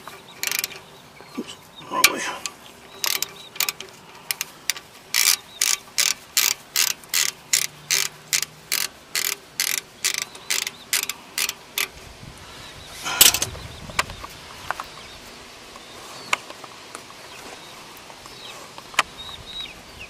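Socket ratchet clicking about three times a second as it backs the loosened 15 mm brake-line banjo bolt out of a Ford Excursion rear brake caliper. A single louder clunk follows about two-thirds of the way through.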